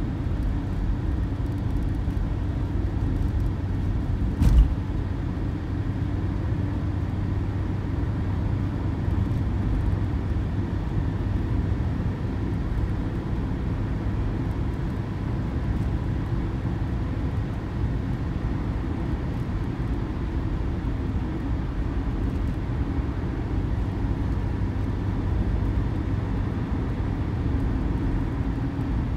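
Steady road and engine noise inside a moving car's cabin, with one short thump about four and a half seconds in.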